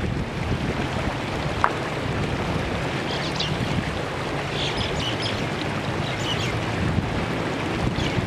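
Shallow rocky stream running steadily, with wind rumbling on the microphone. A few light splashes come about three to six seconds in as someone wades into the water.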